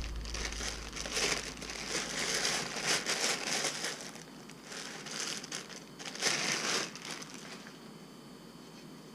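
Packaging crinkling and rustling in irregular bursts as an item is unwrapped by hand, dying down about seven seconds in.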